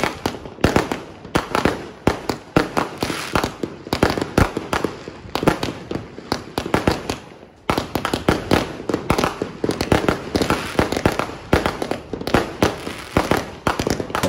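Fireworks and firecrackers going off: a dense, irregular run of sharp bangs and cracks, overlapping one another, with a sudden short lull about halfway through.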